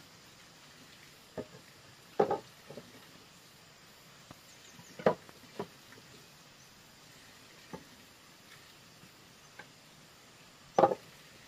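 Irregular sharp knocks, like tools striking wood, about eight of them with uneven gaps, the loudest near the end.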